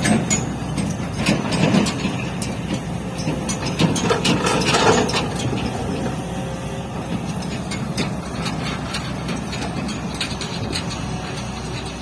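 Tata Hitachi crawler excavator's diesel engine running steadily under scattered metallic clanks and knocks, with a louder rush of noise about four to five seconds in.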